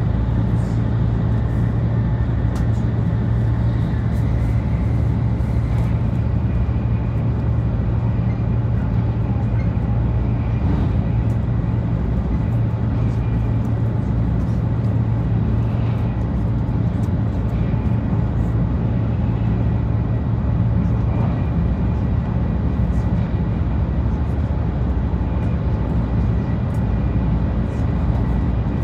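Cabin running noise of a 500 series Shinkansen train in motion: a steady rush of noise over a strong low hum.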